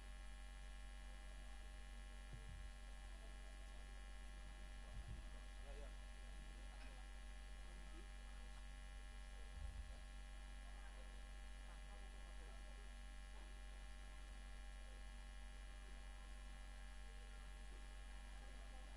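Steady low electrical hum, with a few soft low thumps about two and a half, five and ten seconds in.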